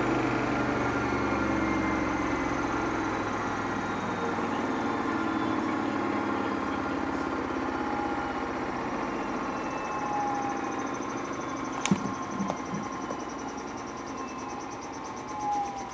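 Samsung front-loading washing machine running, its motor whine slowly falling in pitch as the drum winds down, with a sharp knock about twelve seconds in and a few lighter knocks after it. The knocks come from trainers that have slipped out of the dressing gown they were wrapped in and are loose in the drum.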